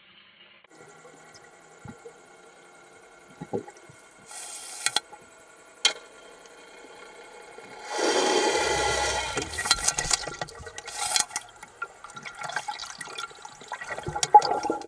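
Underwater sound picked up by a camera in a dive housing: water rushing and bubbling in bursts, loudest about eight seconds in, with a few sharp clicks over a faint steady hum of several tones.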